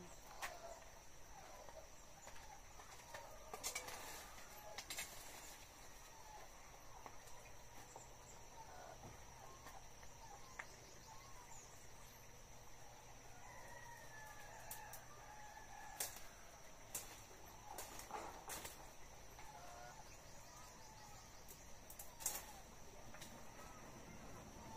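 Faint chickens clucking and a rooster crowing, over a steady high-pitched whine. Several sharp knocks are scattered through, in a cluster a few seconds in and another from about two-thirds through.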